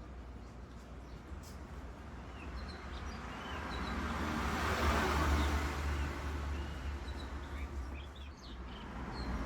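A vehicle passing by outside, its noise rising to a peak about halfway through and fading away, with small birds chirping.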